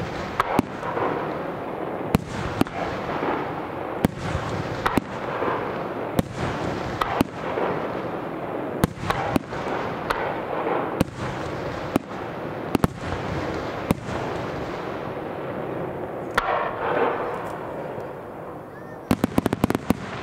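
Aerial firework shells bursting in quick, irregular succession, with a sharp bang every half second to second over a continuous rumble. A rapid run of cracks comes near the end.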